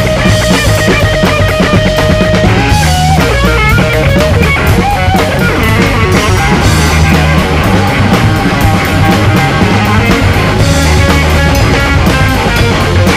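Rock drum kit played hard along with a rock track led by electric guitar, with bending guitar notes a few seconds in and cymbals and drums driving throughout.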